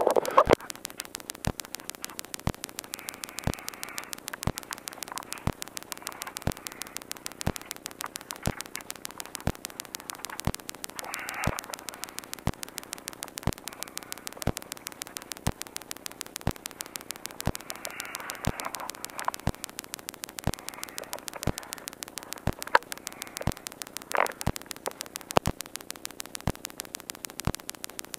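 Electrical static on the race truck's helmet intercom and radio line, with the engine dead: a steady hiss and faint hum with regular rapid ticking, stronger ticks coming about once a second.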